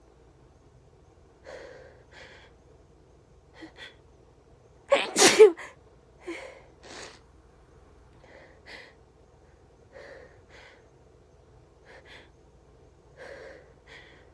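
A person sneezing once, loudly, about five seconds in, with short breathy sounds and intakes of breath scattered before and after it.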